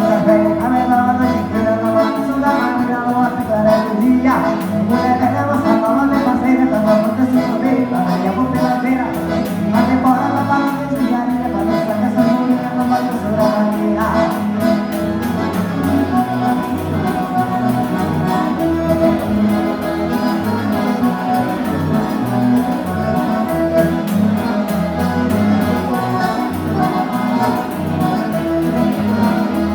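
Live gaúcho dance-band music led by accordion, with a steady bass beat.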